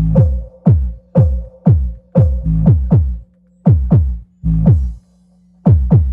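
Electronic dance remix music with deep kick drums that slide down in pitch, about two a second, breaking off briefly twice, over a steady low hum.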